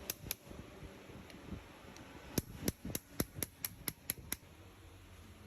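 Sharp knocks from work with tools: two single ones at the start, then a quick run of about nine, some four or five a second, near the middle.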